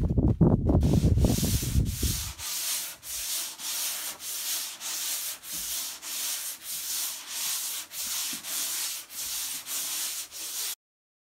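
Hand sanding on a boat deck being faired: a sanding block rubbing back and forth in even hissing strokes, about two a second, which stop abruptly near the end. Before the strokes begin there are about two seconds of loud low rumbling noise.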